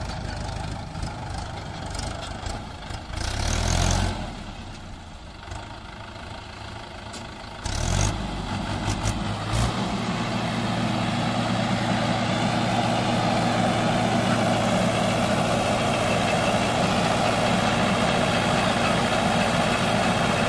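Swaraj tractor's diesel engine idling, with two short rises in revs. From about ten seconds in it runs steadily at raised revs, driving the hydraulics as the tipping trolley lifts.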